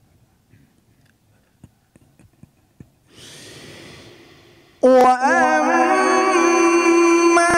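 A deep breath drawn close to the microphone, then about five seconds in a male qari begins a long, melodic Quran recitation line in the tajweed style, the voice sudden and loud, with quick ornamental wavering at its start before it settles into long held notes.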